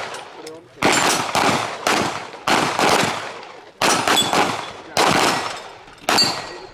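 Several pistols firing on a firing line: about ten sharp shots at an uneven pace, roughly one every half second or so. Each shot dies away in a short echo.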